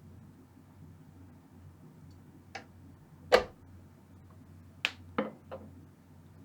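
A handful of sharp clicks and knocks as a small glass vacuum tube is handled and swapped in and out of its socket, about five in all with the loudest near the middle, over a faint steady low hum.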